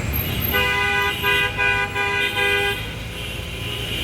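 A vehicle horn honks about four times in quick succession over a steady low rumble of street traffic.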